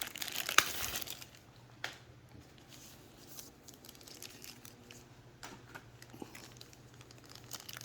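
Plastic packaging crinkling and rustling as it is handled, with a sharp click about half a second in and another near two seconds, then quieter scattered handling sounds.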